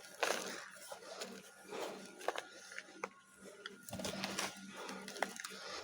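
Dry multani mitti (fuller's earth clay) chunks crumbling: irregular gritty crunches, with sharp little snaps of the clay breaking.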